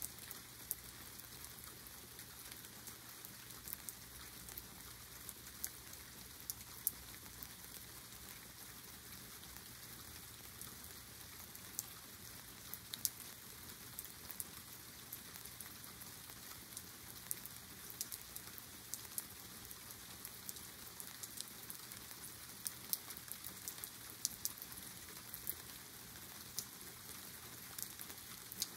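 A steady rain shower falling, with many single drops ticking sharply close by.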